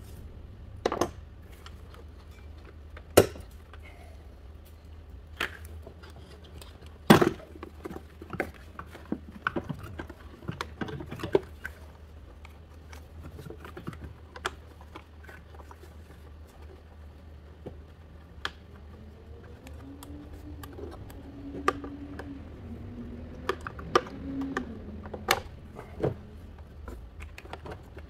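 Hands and a wrench working on plastic intake parts, hose clamps and connectors in a car's engine bay: scattered clicks, knocks and clatter, the loudest about 3 and 7 seconds in, over a low steady hum. A brief wavering tone sounds about two-thirds of the way through.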